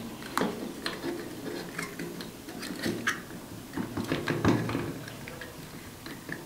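Irregular plastic clicks and taps from a smartphone being fitted into the phone clamp of a one-axis gimbal selfie stick.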